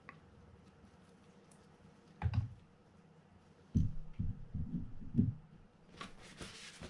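Small greased reel parts handled on a work mat: a soft knock about two seconds in, then a run of soft knocks and clicks as the part is pressed onto a gear, and a short rustle near the end.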